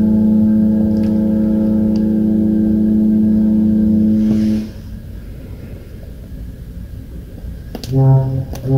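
Cruise ship's whistle sounding one long, steady, deep blast that cuts off about four and a half seconds in: the signal of a ship leaving. A lower rush of wind and sea follows.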